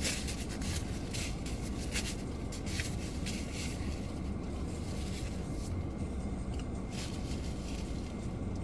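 Steady low rumble of a car's cabin, with a few small clicks and rustles in the first three seconds.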